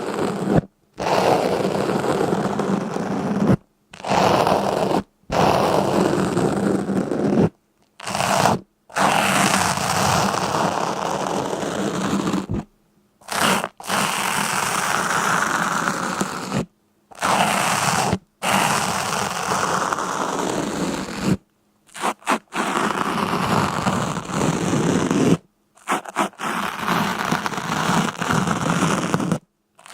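A string of short scraping, crunching noises, each lasting one to a few seconds and cut off abruptly by a moment of dead silence before the next.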